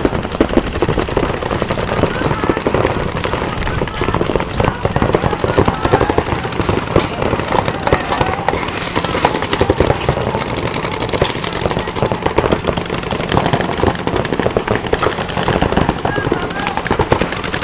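Dense, rapid popping that runs on without a break, with people shouting over it.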